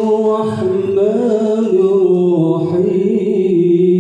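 A man reciting the Quran in murottal style into a microphone, drawing out long notes with melodic turns.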